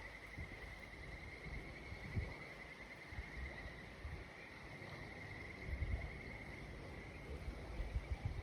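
A steady, high insect trill, like a cricket, runs throughout, over faint low rumbling with a few soft low bumps.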